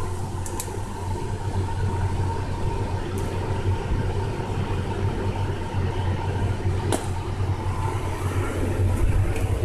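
Steady low electrical hum from the running water-cell test rig's power equipment, with a fainter constant higher tone over it. One light click comes about seven seconds in.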